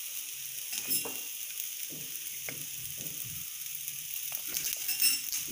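Oil sizzling steadily under a mixed dal dosa frying on a hot dosa pan, its flipped side cooking in freshly added oil, with a few faint ticks.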